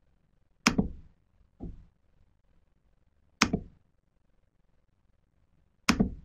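Four sharp knocks or clicks at irregular intervals, close to the microphone. The second is fainter and duller, and the first and last each come as a quick double.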